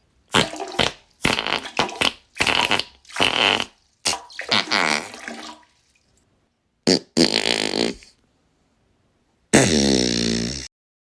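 A string of fart sound effects, about eight short wet, sputtering farts one after another with brief silences between them, then a longer fart of about a second near the end that drops in pitch.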